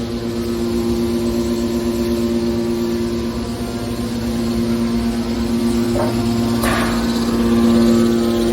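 Hydraulic scrap-metal baler running: a steady machine hum from its motor and pump, with two short knocks about six and seven seconds in.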